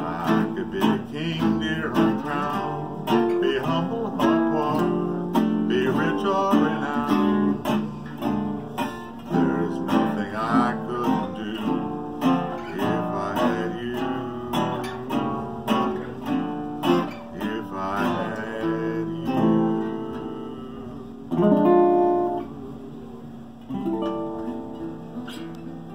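A 1930 National Style O nickel-plated brass resonator guitar and a 1940s Busato gypsy-jazz guitar playing an instrumental duet of quick picked single notes over chords. Near the end they close with strummed chords that ring out and fade.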